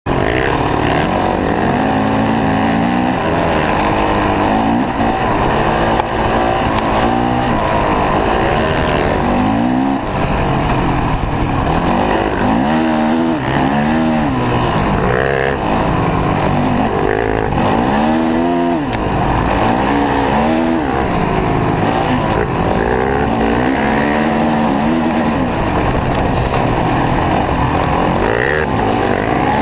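Dirt bike engine revving up and down over and over as it rides a trail, the pitch climbing and dropping every second or two with throttle and gear changes.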